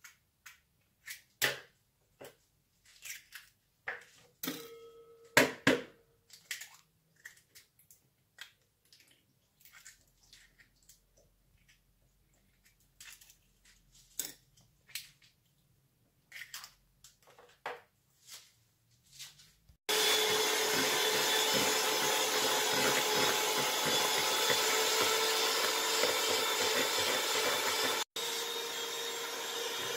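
Scattered taps and clicks as eggs are cracked and separated. About two-thirds of the way in, an electric hand mixer starts and runs steadily, beating egg whites. It breaks off for an instant near the end and goes on a little quieter.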